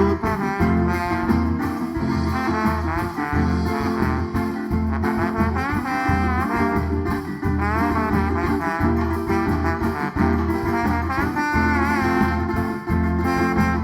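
Instrumental band music with a wind-instrument melody over a strong bass and a steady beat.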